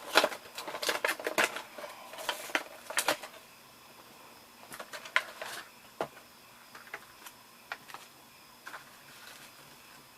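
A HeroClix booster pack being opened by hand: its cardboard and plastic packaging crackling, with a dense run of clicks and crinkles for the first few seconds, then scattered single clicks as the contents are handled.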